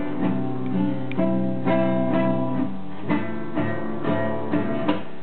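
Acoustic guitar being strummed, chords struck every half second or so and left ringing. The playing stops near the end.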